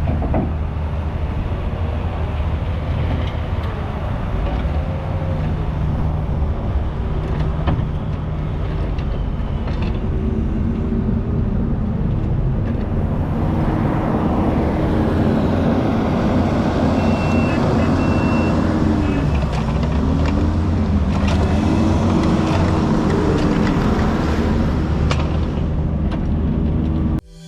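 Kubota U55 mini excavator's diesel engine running under load, with a hydraulic whine that rises and falls as the machine works and occasional knocks. It gets louder and harsher about halfway through.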